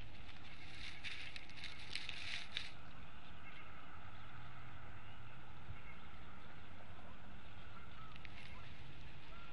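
Bald eagle shifting about in its stick nest, rustling and crackling the dry grass and twigs in a burst about a second in and again briefly near the end, over a steady low background rumble.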